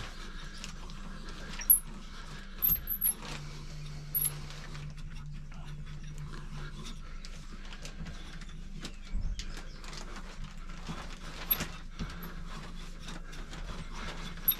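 Hand pipe cutter being turned around a thick aluminium bicycle fork steerer tube: scattered sharp clicks and scrapes over a steady low hum as the cutting wheel bites slowly into the tough tube.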